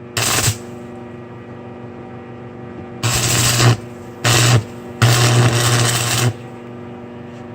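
Electric welder humming steadily between welds, broken by four bursts of arc crackle as chain links are welded together. The bursts come right at the start, twice briefly around three and four seconds in, and once for over a second from about five seconds in.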